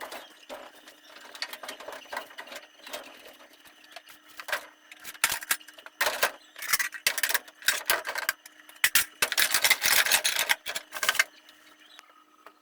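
Objects being handled and rubbed during household cleaning and organising: irregular clicks, knocks and rubbing. These grow busier and louder from about five seconds in, with a long stretch of steady rubbing near ten seconds, then stop about a second before the end. A faint steady hum runs underneath.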